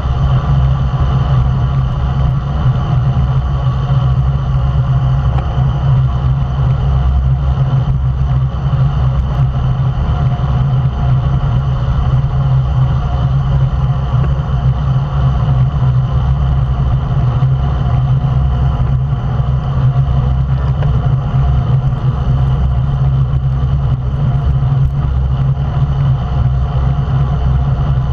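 Loud, steady wind rush and road rumble on a bike-mounted action camera's microphone while riding in a road-race bunch at speed, a deep low rumble that never lets up.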